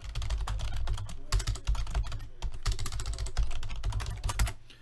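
Fast typing on a computer keyboard, a dense run of key clicks that stops just before the end.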